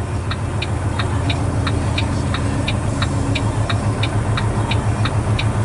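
A semi-truck's indicator flasher ticking evenly, about three ticks a second, over the steady low hum of the idling diesel engine.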